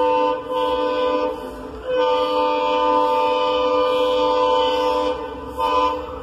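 Indian Railways locomotive horn sounding several tones at once. A blast of about two seconds, a longer one of about three and a half seconds, then a short toot near the end.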